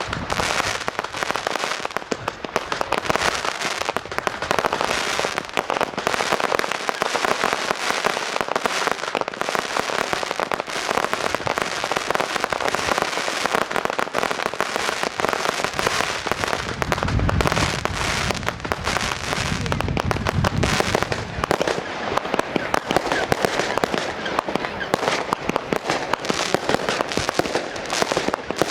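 Fireworks going off in a dense, continuous stream of rapid crackling and popping, with a few deeper booms a little past the middle.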